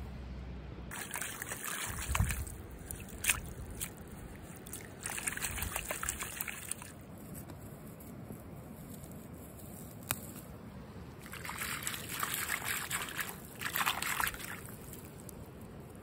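Hands pulling wild greens out of wet, muddy paddy soil: three bursts of rustling and wet squelching, with a few sharp clicks between them.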